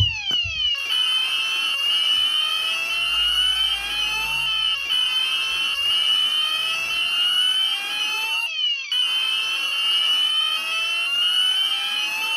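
Premier 9000 addressable fire alarm system sounding its evacuation tone. It is a loud, slow rising sweep that resets and repeats about every three and a half to four seconds. This is the full-alarm evacuate signal that plays between its recorded voice messages.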